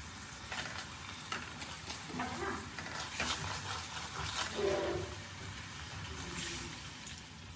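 Thin red sauce sizzling in a nonstick frying pan while a wooden spatula stirs it, with several short scrapes and taps of the spatula against the pan.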